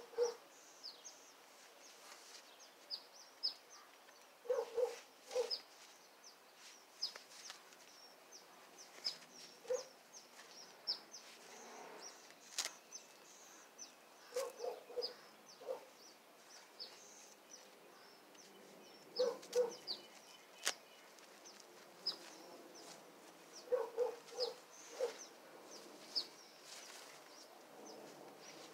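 A dog barking in short runs of two or three barks, about every five seconds, over steady chirping of small birds.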